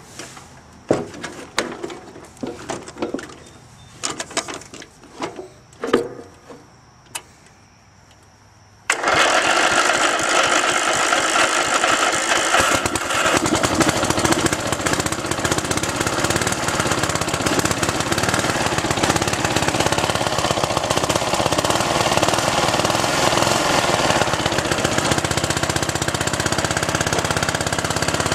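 Scattered clicks and knocks of controls being handled, then about nine seconds in a riding lawnmower's 12 HP single-cylinder engine comes in suddenly and runs loud and steady.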